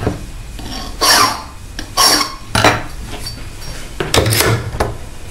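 Hand file rasping on a key blank in a few separate strokes, deepening the impression mark at pin position two. Near the end there are sharper metal clicks as the blank is worked in the lock cylinder.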